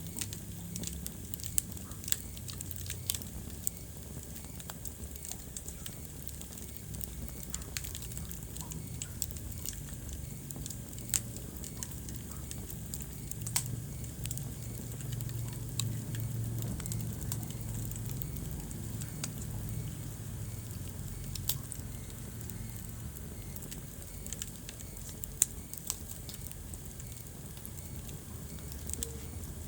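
Wood fire crackling in a fireplace: irregular sharp pops and snaps over the low, steady rumble of the flames, with one louder pop near the end.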